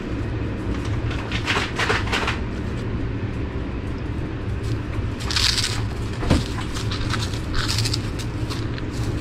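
Panko breadcrumbs crunching and rustling in a few short bursts as pieces of snapper are pressed and rolled in them on a plate, over a steady low hum.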